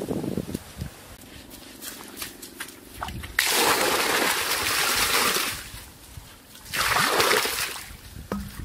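Water poured from clay pots splashing into a shallow pool of muddy water. There are two loud pours: one about three and a half seconds in that lasts about two seconds, and a shorter one about seven seconds in.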